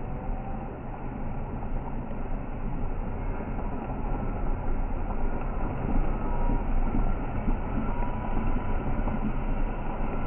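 Steady low rumble of a vehicle engine running while stopped, with the general noise of moving cattle around it.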